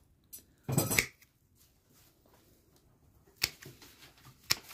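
Secateurs cutting woody panicle hydrangea stems: a short rustle of branches ending in a snip about a second in, then two sharp snips near the end.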